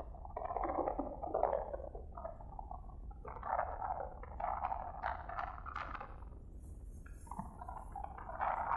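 Rough, stormy sea surf washing and surging in waves, with strong wind rumbling on the microphone.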